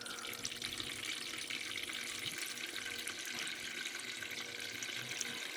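Water running steadily, filling the Balmuda humidifier's water tank of about 4 litres.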